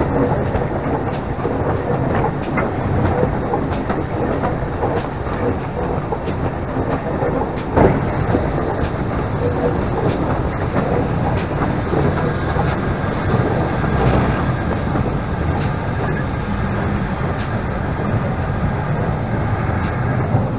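GWR King class steam locomotive 6023 'King Edward II' running along the line, heard from the cab side: a steady rumble with a wheel click about once a second, and one sharper knock about eight seconds in.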